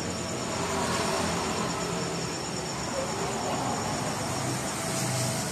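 Crickets trilling steadily in high, unbroken tones over a constant background hiss.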